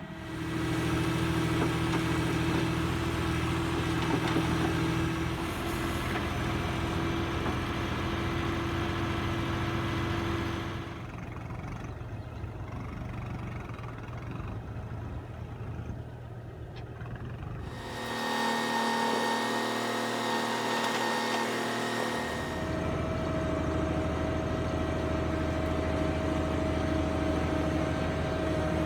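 Diesel engines of a backhoe loader and a tractor running steadily under working load. The engine note changes abruptly a few times, dropping about 11 seconds in and shifting again around 18 and 22 seconds.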